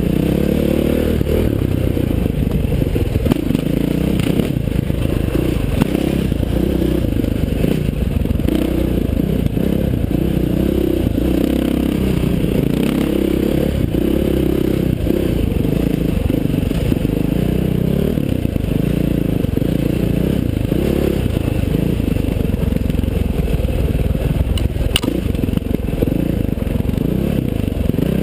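KTM 530 XC-W dirt bike's single-cylinder four-stroke engine running on a rough trail, its note rising and falling with the throttle, with the clatter of the bike over rocky ground. A sharp tick near the end.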